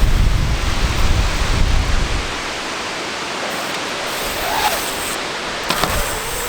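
Strong wind buffeting the microphone: gusty low rumble for the first couple of seconds, easing to a steady rushing hiss.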